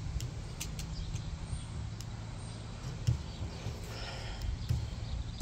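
Light clicks and scrapes of galvanised wire being twisted tight with a hook-shaped twitch tool, over a steady low rumble.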